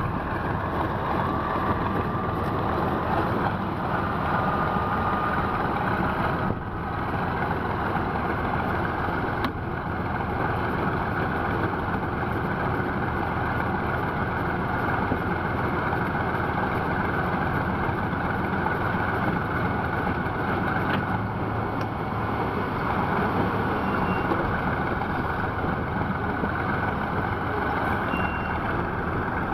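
Heavy vehicle engines running steadily: an even, unbroken engine and road noise with no distinct events.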